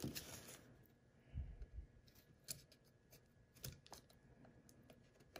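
Near silence with faint handling noises: a few scattered light clicks and a couple of soft thumps as fingers work a thin bent aluminum strip into a slit in a skull mask's jaw.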